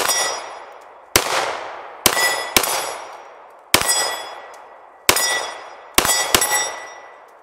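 About eight 9mm pistol shots from a CZ 75 SP-01 Phantom, fired at an irregular pace with a pause of roughly half a second to a second and a half between them. After each shot a steel target rings with a clear, slowly fading clang.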